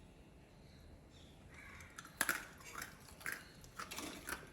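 Crunching as someone bites into and chews crisp sharkara varatti, fried raw-banana pieces coated in jaggery. One sharp crunch comes a little over two seconds in, followed by irregular smaller crunches. The crisp crunch is the sign that the batch came out well.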